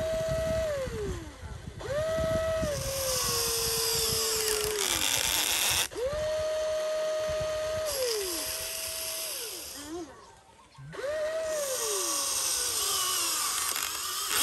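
Huina radio-controlled excavator's small electric motors whining in about five separate runs as the boom and bucket move. Each run holds a steady pitch and then winds down in pitch as the motor stops, and the longer runs carry a high hiss.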